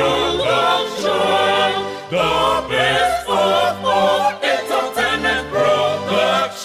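Church choir singing in several-voice harmony over sustained low keyboard notes. The phrases are broken by short breaks.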